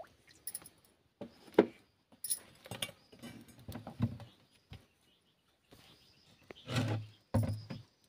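Wood fire crackling under an iron kadai on a clay chulha: irregular sharp pops and clicks, with a few duller, fuller knocks, the loudest about seven seconds in.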